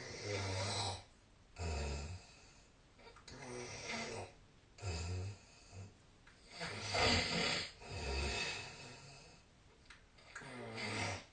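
A sleeping person snoring: a rough, rumbling snore on each breath, about seven in all with short quiet gaps between them, the loudest about seven seconds in.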